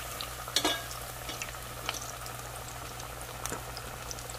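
Hot oil bubbling and sizzling around potato pieces frying in a pot, with scattered fine crackles and one sharper, louder clack about half a second in.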